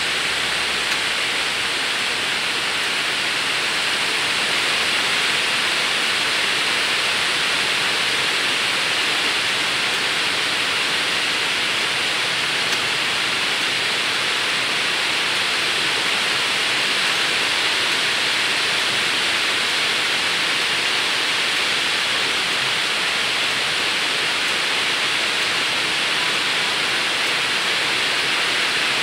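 A steady, even hiss, like rushing water.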